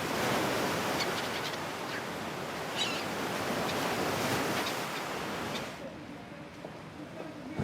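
Surf, a steady rush of waves breaking, with a few short bird chirps over it; the surf sound cuts off sharply about six seconds in, leaving a quieter background.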